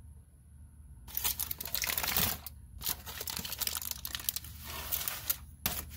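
Aluminium foil crinkling and rustling in bursts as it is unwrapped from around a resting steak, starting about a second in.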